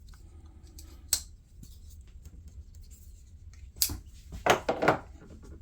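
Folding knives being handled and set down on a hard surface: a few sharp clicks and short scrapes of metal and aluminium handles.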